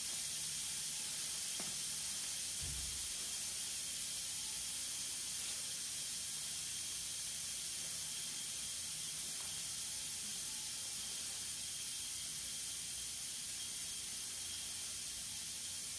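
Steady hiss of compressed air escaping from an epoxy crack-injection port during an air test. Air reaching this port shows that the crack carries air from port to port.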